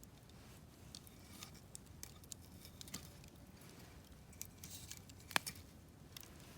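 Wood campfire crackling quietly, with scattered small pops and one sharper pop a little past five seconds in.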